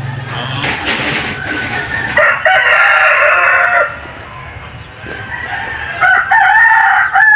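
A rooster crowing twice, each crow about a second and a half long: one about two seconds in, the other about six seconds in.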